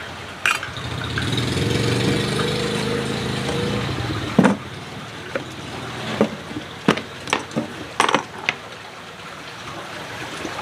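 A motor vehicle's engine runs by for a few seconds and fades away. Then comes a sharp knock, followed by a series of light plastic clicks and clatters as a plastic container's lid is taken off and set on a wooden table.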